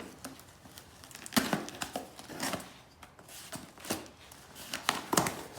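Cardboard and plastic packaging being handled and torn open: irregular crinkling, rustling and tearing, with several sharper crackles.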